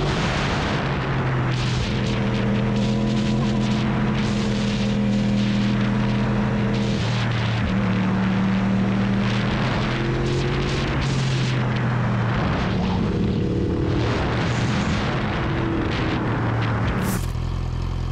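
Yamaha YZF-R1 sportbike engine running under way, its note stepping up and down several times with throttle and gear changes. Heavy wind rushes over the microphone while riding.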